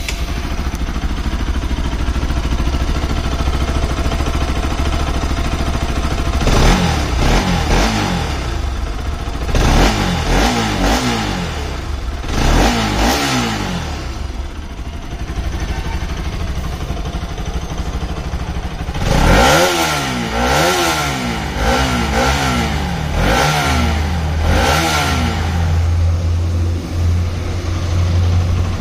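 Bajaj Pulsar RS200's 200 cc single-cylinder, liquid-cooled, fuel-injected engine idling steadily and being revved in about six short blips, three in the first half and three more later on, the revs rising and falling with each.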